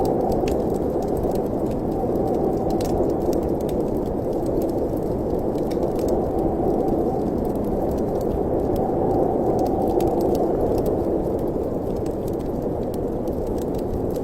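Fireplace ambience: a steady, gently swelling wind-like rush, with faint scattered crackles of a wood fire.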